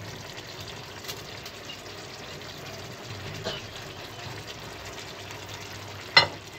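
Watery potato curry simmering in a pan, a steady soft bubbling hiss, with one sharp knock about six seconds in.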